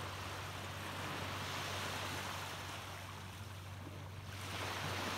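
Small waves washing up onto a sandy, pebbly shore. The hiss of the wash swells at the start and again about four seconds in, over a steady low hum.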